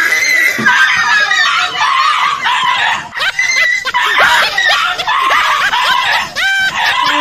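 Loud, high-pitched shrieking cries from several voices at once, with a brief dip about three seconds in.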